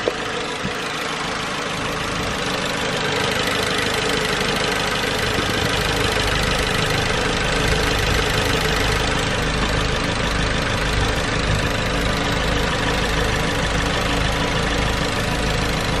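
The 1999 Nissan Altima's KA24DE 2.4-litre four-cylinder engine idling steadily, running on a freshly replaced fuel filter.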